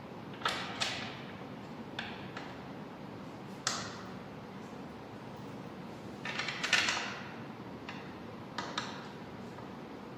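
Oil pan bolts being set into the pan's flange by hand: scattered short metallic clicks and clinks, with a denser cluster about six to seven seconds in.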